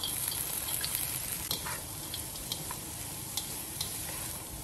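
Chopped cabbage, carrot and capsicum sizzling as they go into hot oil in a wok and are stir-fried, with a steady hiss and scattered clicks of the spatula knocking against the wok.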